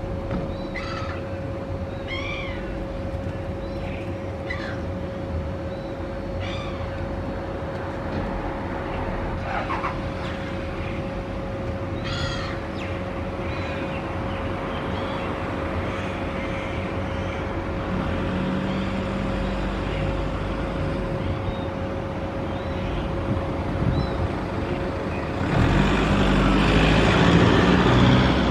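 Silver gulls calling: a series of short cries that rise and fall in pitch, about one a second, thinning out after the first half, over a steady hum and low traffic rumble. A louder rushing noise swells near the end.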